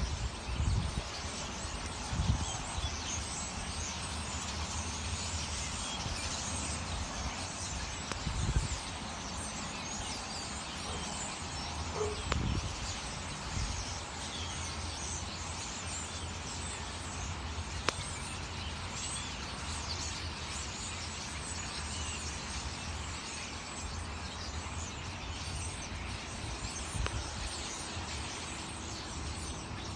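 A dense chorus of many small birds chirping and chattering together in a tree, over a steady low hum, with a few low rumbles now and then.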